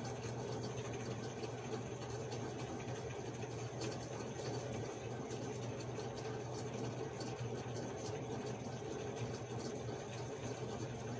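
A steady low background hum runs throughout, with faint scattered ticks and rustles from hand-stitching felt with needle and thread.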